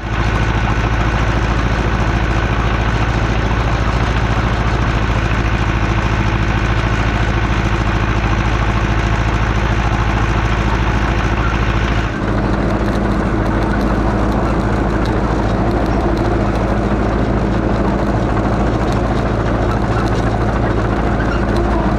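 Allis-Chalmers 655 crawler track loader's engine running steadily. About halfway through there is an abrupt change to a slightly different engine sound.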